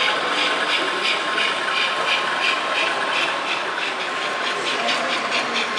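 An O-scale (1:43) model steam train running, with a rhythmic chuffing hiss about four beats a second over a steady high whine.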